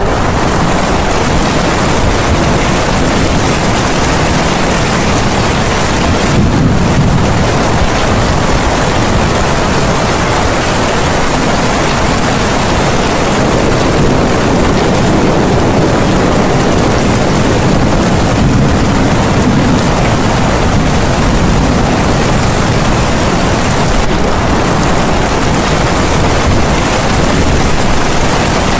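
Loud, steady rain-like rushing noise with no breaks, the masking track that subliminal recordings lay over hidden affirmations.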